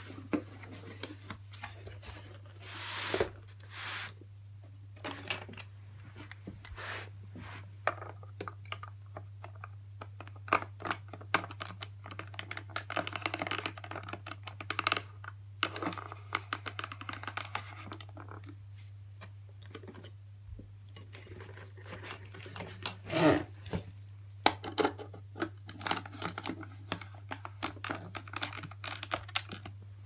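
Cardboard box and plastic vacuum cleaner tools being handled: irregular rustling, scraping and sharp clicks as the hose fitting is pushed into the hose port on the front of a Hoover Junior upright.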